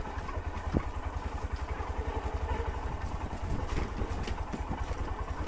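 Motorcycle engine running steadily at low revs as the bike rolls slowly over a dirt track, with one sharp knock about three-quarters of a second in.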